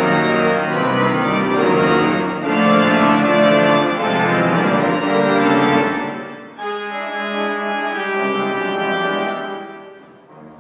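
Pipe organ playing loud, full sustained chords, dropping to a softer passage about six and a half seconds in and fading near the end.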